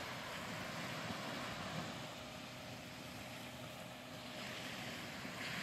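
Steady seaside background: an even hush of wind and water, with a faint steady hum through the middle.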